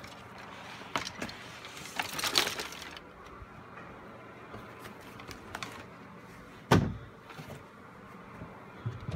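Household items being handled in a cluttered closet: plastic clothes hangers clicking and knocking, a rustling scrape about two seconds in, and one heavy thump a little before seven seconds, over a faint steady hum.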